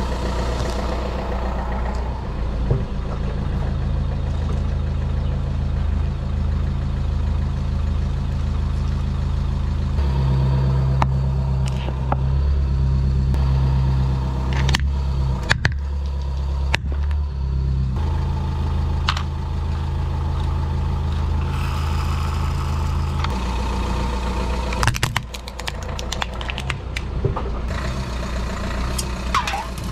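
A car engine idling steadily as the tyre creeps forward, with scattered sharp cracks and snaps of plastic toys breaking under the wheel and a burst of crackling near the end.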